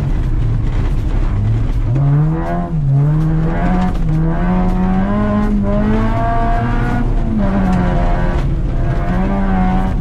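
Acura RSX's four-cylinder engine revving hard, its pitch climbing and falling as the car is driven at pace, with a brief lift of the throttle about a quarter of the way in.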